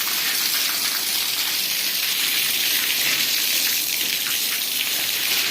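Steady rushing hiss of running or spraying water.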